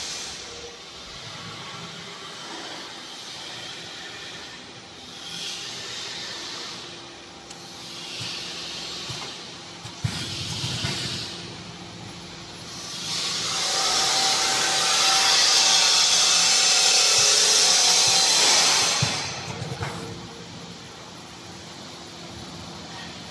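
Vertical powder packing machine with an auger filler running. It gives short hisses about every two seconds, then a longer, louder hiss lasting about six seconds, with a few knocks in between.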